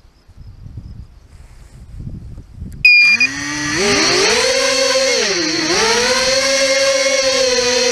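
Small FPV quadcopter's electric motors spinning up: a short beep about three seconds in, then a loud whine that rises, dips briefly and rises again before holding steady. Before it, only a low wind rumble.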